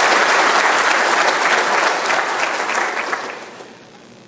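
A large audience applauding in an auditorium, the clapping dying away about three seconds in.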